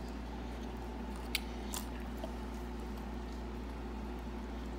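Three small sharp clicks or crunches, the loudest about a second and a half in, over a steady low hum.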